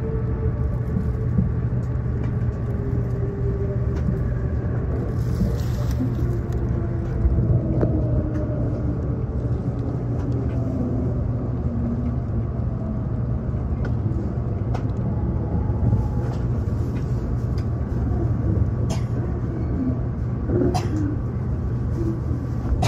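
Electric limited express train heard from inside a car, running into a station and braking: a steady rumble of wheels on rail under electric motor tones that fall steadily in pitch as it slows. A few sharp clicks come near the end.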